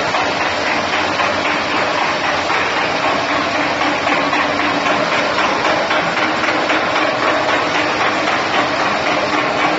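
Industrial continuous fryer line running: a loud, steady machine noise with a faint constant hum underneath.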